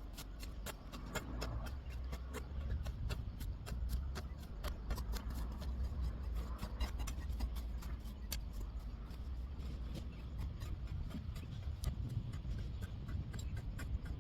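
Weeding by hand tool: a dense, irregular run of sharp ticks and snaps, several a second, as weeds and soil are struck and pulled, over a steady low rumble.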